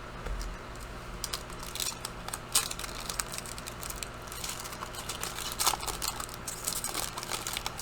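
Foil trading-card pack being pulled open and handled, with irregular crinkling and small sharp rustles of the wrapper and cards.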